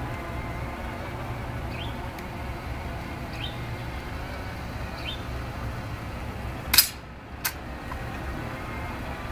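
Ceremonial M14 rifle being handled during a tomb guard's rifle inspection: one sharp snap about two-thirds of the way through, then a lighter click under a second later. A faint short rising bird chirp repeats about every second and a half over a steady low rumble.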